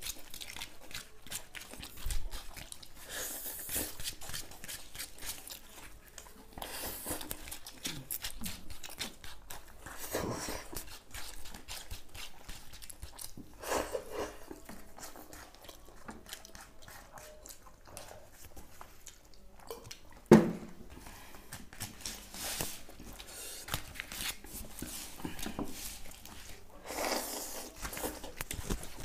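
Two people eating noodles with forks from foil plates: chewing and slurping, with scattered small clicks and scrapes of forks on the foil. A single sharp knock stands out about twenty seconds in.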